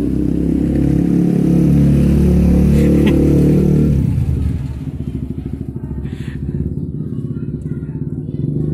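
Motorcycle engine running loud as it passes close, then dropping away about four and a half seconds in. A quieter, fast-pulsing engine sound carries on.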